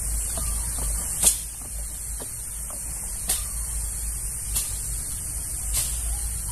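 Sprayer nozzle hissing steadily as biosaka solution is sprayed onto weeds, over a low hum, with a sharp tick every one to two seconds.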